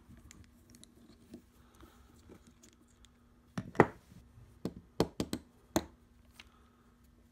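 Faint scraping, then about half a dozen sharp metallic clicks and knocks starting about halfway through, as a click-type torque wrench is taken apart: its retaining nut is removed and its knurled handle slid off the shaft.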